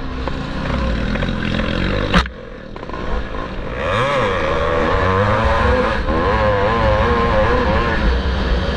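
1974 Maico 440 two-stroke single-cylinder motocross bike at race pace, its pitch rising and falling as the throttle is worked. About two seconds in there is one sharp knock, the engine drops off briefly, then revs back up and runs hard again.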